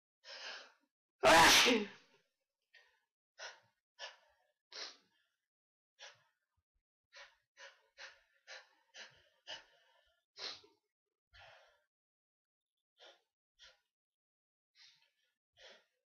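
A person sneezes once, loudly, about a second in, then catches their breath in a long run of short, sharp hitching inhales, irregularly spaced every half second to a second or so: the build-up toward another sneeze.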